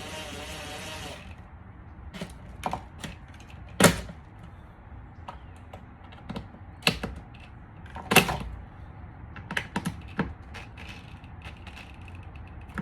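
Irregular sharp clicks and knocks of hand tools and small parts being handled and set down while a car door is put back together, after a brief scraping rustle at the start. Two knocks, about 4 and 8 seconds in, stand out as the loudest.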